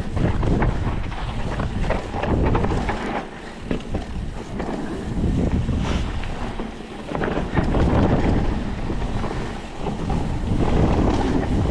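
Mountain bike descending a loose dirt trail, heard through a ride-mounted camera: a rumble of wind buffeting the microphone that rises and falls with the rider's speed, over tyre noise on dirt and frequent short rattles and clicks from the bike.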